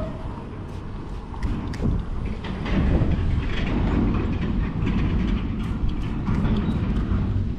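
Wind buffeting the microphone: a loud, gusting low rumble that rises about two seconds in, with a few light clicks over it.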